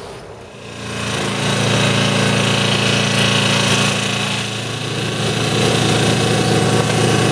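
Petrol-engined abrasive rail saw cutting a steel streetcar rail: it comes up to speed about a second in and runs loud and steady, a droning engine with a grinding hiss over it, easing briefly a little past halfway.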